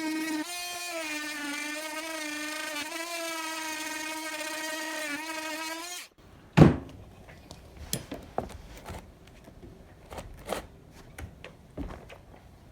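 Oscillating multi-tool running with a steady high buzz, its pitch dipping slightly now and then as the blade takes load; it stops suddenly about six seconds in. A sharp knock follows, then scattered light clicks and taps.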